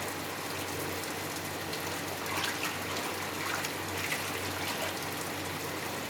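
Water running steadily into the wash tub of a twin-tub washing machine, splashing onto the laundry as the tub fills.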